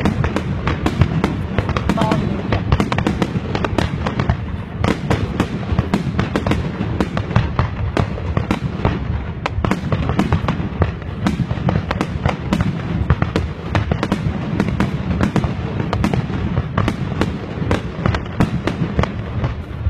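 New Year fireworks going off in a dense, continuous barrage of rapid cracks and bangs over a low rumble, the finale of the display.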